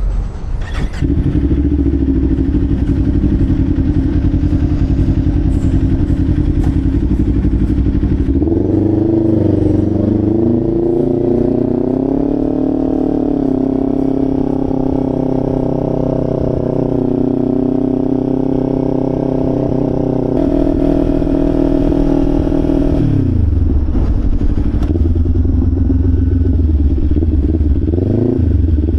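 2025 Kawasaki Ninja 500's parallel-twin engine running through an aftermarket Leo Vince LV Corsa exhaust while being ridden. The engine runs steadily at first, then its pitch rises and wavers as it pulls harder about nine seconds in and holds higher. The pitch falls back about twenty-three seconds in, then rises again near the end.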